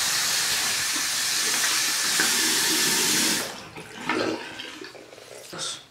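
Bathroom sink faucet running steadily onto a towel, shut off abruptly about three and a half seconds in. Then softer splashes and drips as the soaked towel is squeezed out over the basin.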